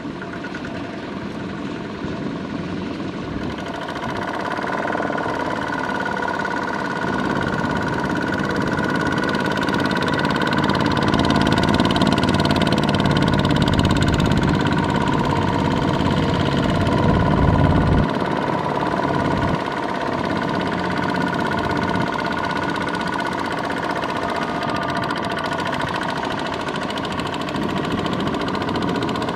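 The single-cylinder diesel engine of a two-wheel walking tractor, running steadily under load while it pulls a loaded trailer. It gets louder from about four seconds in and drops back a little past halfway.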